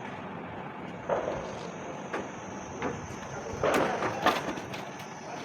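Scattered knocks and clatter of casing panels being handled and fitted onto an air conditioner indoor unit, several separate clunks with a busier cluster a little past the middle.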